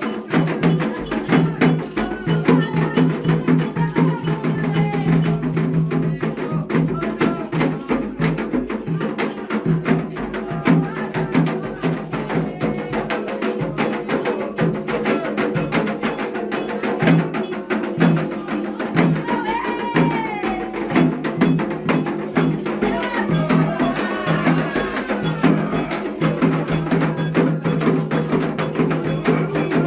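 Candomblé ritual music: fast, continuous hand-drumming with a struck bell or wood-block pattern, and singing voices over it.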